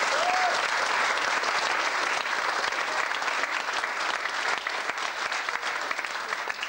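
Congregation applauding: dense, steady clapping from many hands that starts to thin out near the end.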